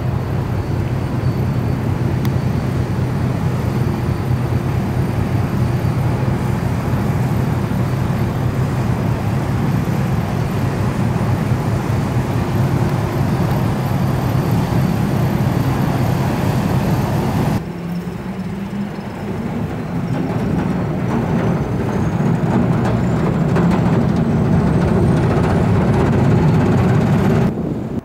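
Diesel engines of inland cargo ships passing close by. First a steady low drone, then, after a sudden cut, a second ship's engine whose pitch rises as it grows louder.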